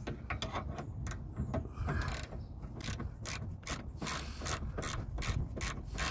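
Hand ratchet clicking as the bolt on the car's anti-roll bar mounting is turned: a few scattered clicks, then from about two seconds in a quick, even run of about three to four clicks a second.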